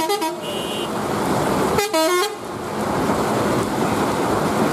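Two short vehicle horn honks about two seconds apart, the second slightly longer, over the steady hiss of heavy rain and waiting traffic.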